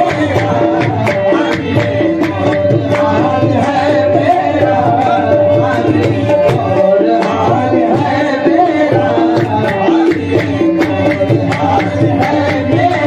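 Qawwali music: tabla playing a steady rhythm under a harmonium melody, with one note held as a drone.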